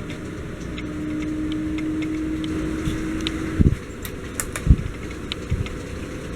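A steady machine hum, one even tone, that stops about three and a half seconds in with a dull thump. Two more low thumps follow, with faint light clicks throughout.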